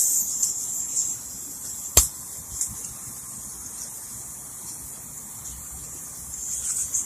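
Small wind-up toy's clockwork mechanism buzzing in high-pitched bursts near the start and again near the end, with one sharp knock about two seconds in.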